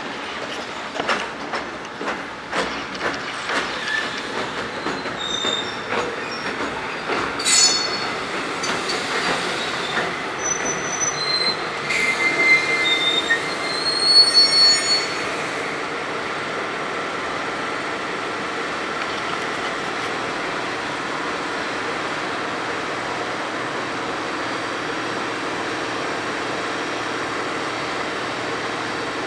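Freight train passing: wheels clacking over rail joints with several high-pitched wheel squeals through the first half, then an even, steady rolling noise from about halfway on.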